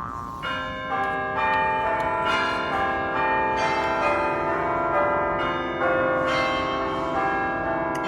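Bell-like ringing tones: several notes start one after another and are left to ring, piling up into an overlapping chord.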